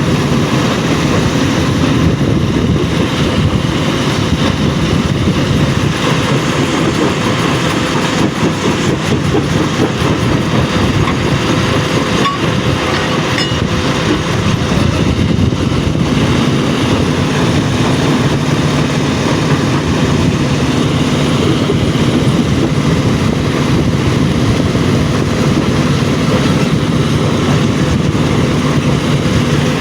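Stone crushing plant machinery running continuously: a loud, steady mechanical noise with a faint steady hum underneath.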